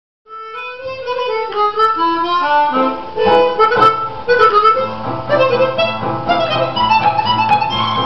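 Harmonica music: a melody of short held notes starting a moment in, with lower sustained notes sounding beneath it from about five seconds in.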